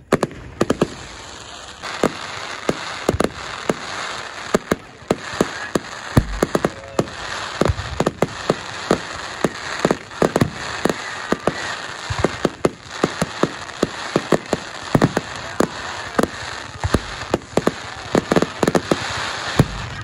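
Aerial fireworks display: dozens of sharp bangs from bursting shells, coming at an uneven pace, over a continuous noisy crackle.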